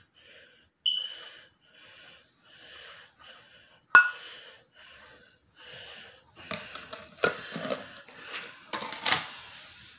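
Sugar scrub being stirred with a spoon in a metal bowl: rhythmic gritty scraping, about one and a half strokes a second, with sharp ringing clinks of the spoon on the bowl about a second in and four seconds in, then busier, louder scraping and clatter in the second half.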